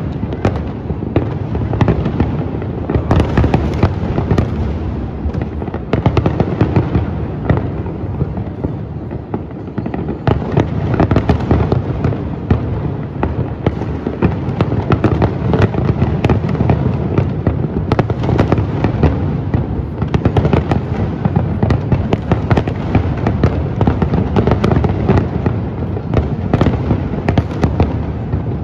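Aerial firework shells bursting in a continuous barrage: a dense, unbroken run of booms and crackles, easing slightly about nine seconds in before building again.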